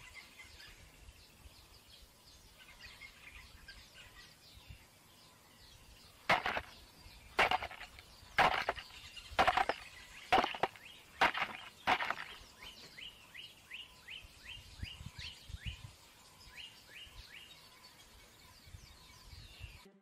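Southern ground hornbill striking a tortoise shell with its bill: a run of about seven sharp knocks roughly a second apart, starting about six seconds in. After them a small bird calls in the background in quick, short rising chirps.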